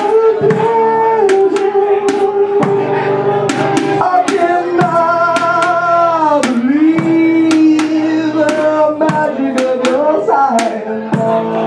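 A blues band playing: electric guitar and singing with long notes that bend up and down in pitch, over makeshift percussion. The percussion is a stick and mallet striking an upturned plastic bucket and a milk crate topped with tin foil and a plastic lid, giving sharp hits a few times a second.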